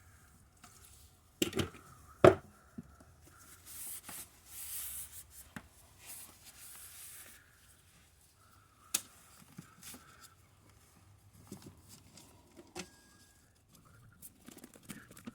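Hands-on workbench handling: a few sharp knocks and taps, and a stretch of scratchy rustling in the middle, as parts and materials are picked up and handled.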